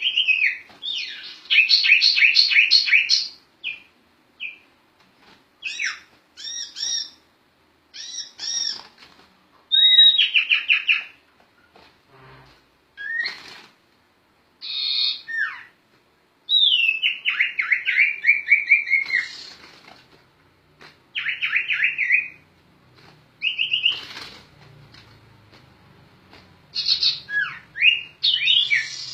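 Sirtu (sirpu) songbird singing in full voice, a string of varied phrases: fast runs of repeated notes, falling trills and short whistles, separated by brief pauses. A faint low hum sits under the song near the end.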